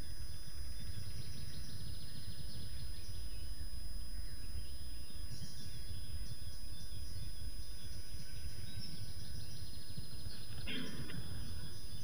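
Steady low rumble of outdoor microphone noise with faint birds chirping, and one brief louder sound near the end.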